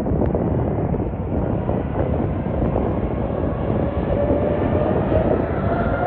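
Airbus A320neo jet engines at takeoff power: a steady deep rumble, with a whine that grows from about halfway through and rises in pitch toward the end.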